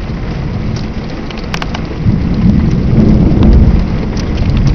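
Heavy rain pouring in a thunderstorm, with a low rumble of thunder swelling up about two seconds in.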